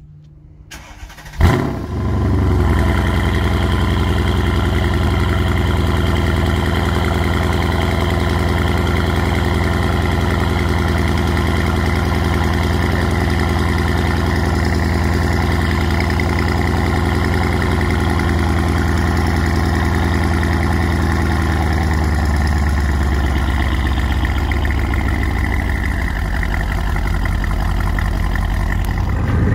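Mercedes E63 AMG's 5.5-litre M157 biturbo V8, with catless downpipes and a resonator delete ahead of the stock mufflers, starting up about a second and a half in with a brief sharp flare of revs. It then settles into a steady idle.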